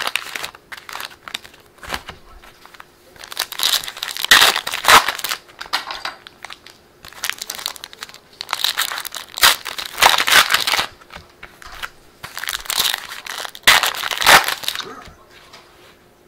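Foil trading-card pack wrappers crinkling and tearing as packs are opened by hand, in several bursts of rustling a few seconds apart.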